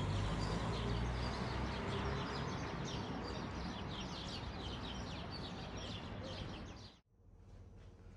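Outdoor ambience of many small birds chirping in quick short calls over a low steady hum. It cuts off sharply about seven seconds in.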